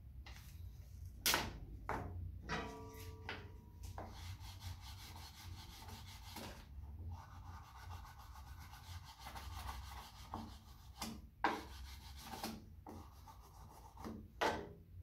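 Edge-banding tape being rubbed and pressed down by hand onto the edges of a small wooden box, with the box and tape roll knocking on the workbench several times. There is a brief squeak about three seconds in and a low steady hum underneath.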